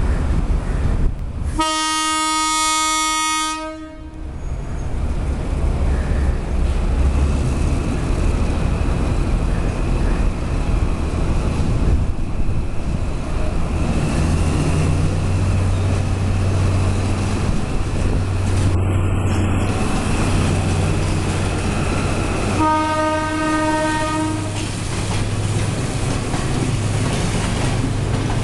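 Sri Lanka Railways M5B class diesel locomotive no. 772 pulling a passenger train out of the station. Its horn sounds a blast of about two seconds near the start and a second, shorter blast about twenty-three seconds in. Between and after the blasts the engine runs with a steady low drone that grows as the locomotive comes past, and the carriages rumble by.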